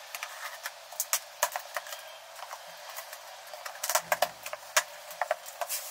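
Cardboard box being opened by hand: packing tape picked and pulled off and the flaps handled, a run of irregular sharp crackles and taps that is busiest about four seconds in.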